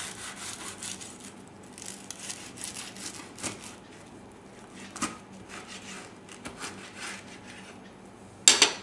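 Knife sawing through a crisp grilled bread sandwich on a wooden cutting board: quick back-and-forth rasping strokes, about four a second, for the first few seconds, then a few scattered clicks and one short, louder stroke near the end.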